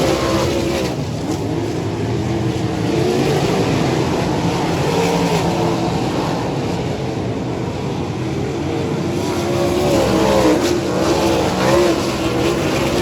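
Racesaver sprint cars' V8 engines running at race speed, their note rising and falling with the throttle.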